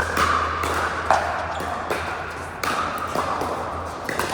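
Pickleball paddles hitting the ball: about a half-dozen sharp, irregular pops with a short ringing echo after each, over a steady low hum.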